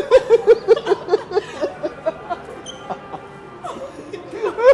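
A woman laughing hard in quick repeated bursts, which ease off after about a second and a half and break out again near the end.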